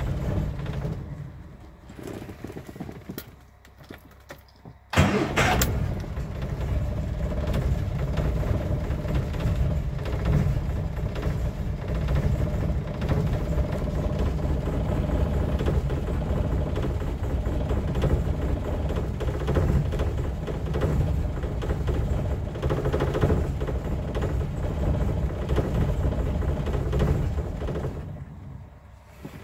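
Ford Cortina engine heard from inside the cabin: it dies away at the start, catches suddenly about five seconds in, and runs roughly for over twenty seconds before cutting out near the end.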